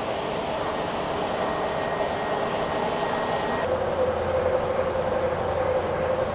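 Steady road and engine noise of a car driving along a highway. About two-thirds of the way through it changes abruptly to a different steady drone with a deeper hum.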